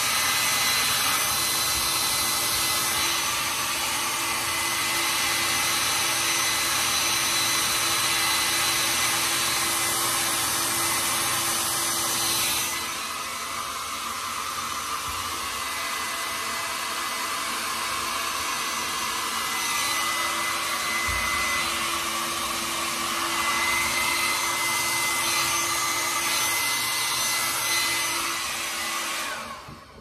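Compact Sejoy hair dryer running steadily, a rush of blown air with a thin motor whine, drying a beard. It gets a little quieter about halfway through and cuts off just before the end.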